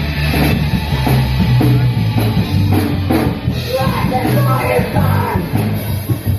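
Rock band playing loudly on drum kit, bass and guitar. A higher melodic line that bends in pitch comes in about four seconds in.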